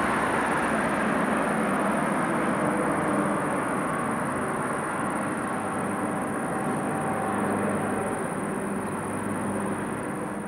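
Jet airliner engines running at a distance: a steady rush with a faint even whine, slowly easing off.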